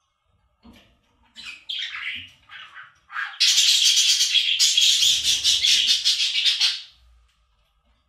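Budgerigar chirping: a few short chirps, then a dense run of fast chirping and warbling for about four seconds that stops near the end.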